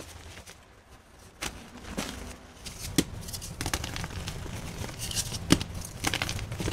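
Dyed gym chalk blocks crushed by hand in loose chalk powder: irregular dry crunches and crumbles. Sharper snaps come about three seconds in and again near five and a half seconds.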